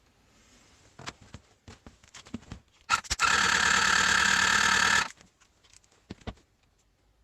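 Honda MC14E inline-four engine spun over by its electric starter for about two seconds, a steady, even whirring that cuts off suddenly, as when cranking for a compression test. Light clicks and knocks from handling tools come before and after.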